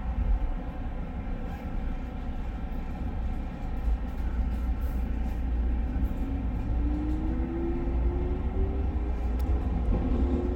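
JR West 221 series electric train running, with a steady low rumble of wheels on rail. From about two-thirds of the way in, a motor whine rises slowly in pitch as the train picks up speed.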